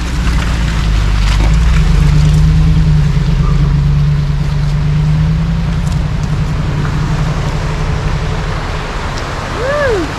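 Power Wagon truck engine under load while crawling over a rock. Its pitch rises about a second and a half in, holds steady, then eases off. Near the end there is a brief squeak that rises and then falls.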